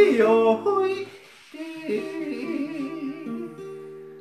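A man yodeling to a strummed acoustic guitar, his voice leaping between pitches. After about a second the singing drops away and returns as a softer wavering held note over a ringing guitar chord.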